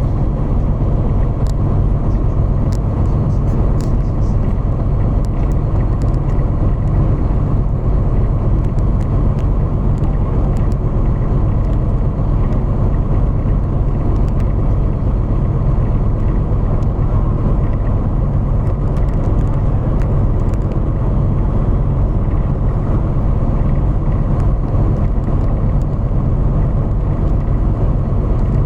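Motor vehicle driving at a steady speed: a constant low engine and road rumble that does not change in pitch or level.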